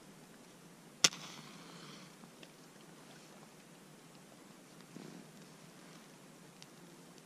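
A match struck once, about a second in: a sharp snap followed by about a second of fizzing hiss as it flares to light dry spruce kindling. There is a fainter rustle near five seconds.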